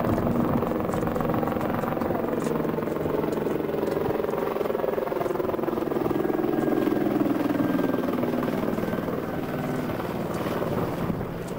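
Helicopter engine and rotor drone overhead, its pitch falling as it passes by, then easing off slightly near the end.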